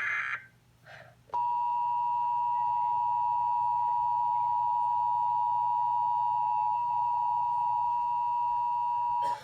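Weather radio sounding the Emergency Alert System two-tone attention signal: a steady two-note tone that starts about a second in and holds for about eight seconds before cutting off, announcing the flash flood warning that follows. Just before it, the tail of a buzzy digital header burst ends.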